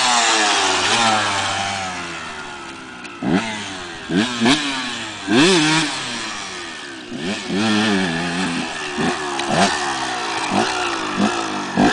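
KTM EXC dirt bike engine revving, loud as it passes close and then fading away over the first few seconds. After that comes a series of short, sharp throttle blips, the pitch jumping up and dropping back again and again as the bike is ridden.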